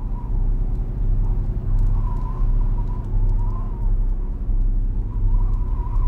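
A loud, steady low drone with a wavering, warbling high tone above it, carried unchanged across the cut to the title card.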